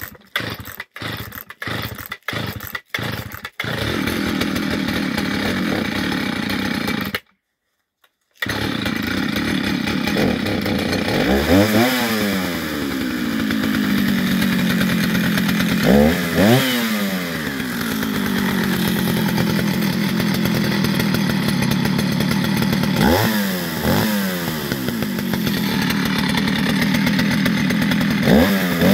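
Jonsered 601 two-stroke chainsaw being pull-started: about six quick pulls with coughs, then it catches and runs steadily. After a second's break it idles and is revved up and let back down four times.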